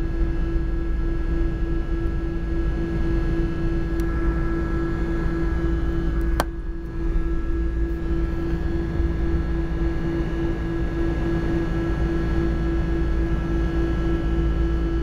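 Jet airliner climbing after takeoff, heard inside the passenger cabin: a steady engine drone over a low rumble, with a steady hum running under it. A single sharp click about six seconds in.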